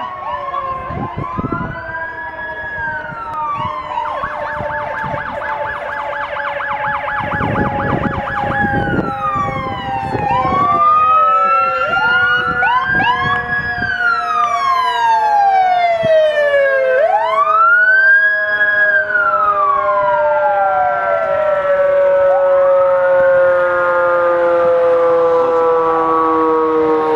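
Sirens of a procession of fire engines and an ambulance, several at once. Wailing tones rise and fall over one another, with a fast yelp from about four to nine seconds in and a long, slowly falling tone underneath. They get louder about eleven seconds in as the trucks draw near.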